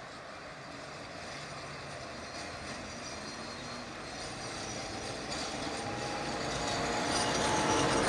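Tatra tram running on street track, its wheels and running gear rumbling louder and louder as it approaches and passes close by, with a faint whine joining in near the end.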